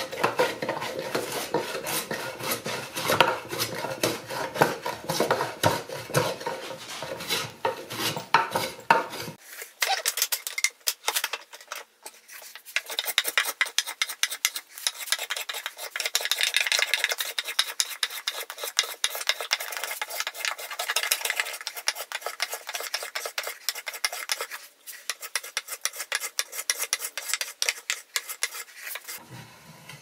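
Small wooden hand plane shaving a wooden box's edges in rapid short strokes: a continuous scratchy rasp of blade on wood. About nine seconds in the sound turns thinner and brighter.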